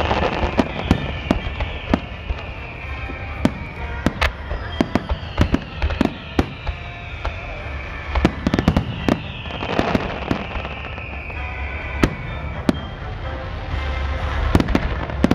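Aerial fireworks display: a rapid, irregular run of sharp bangs and booms from bursting shells over a deep rumble, with several long whistles that fall in pitch.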